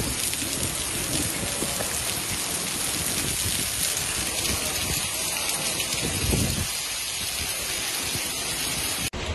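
Heavy rain mixed with small hailstones pelting paved ground: a dense, steady hiss of many tiny impacts. The sound changes abruptly near the end.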